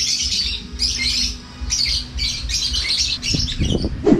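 Birds calling over and over in quick repeated bursts, several a second, over a low steady rumble; a short, louder, lower sound comes just before the end.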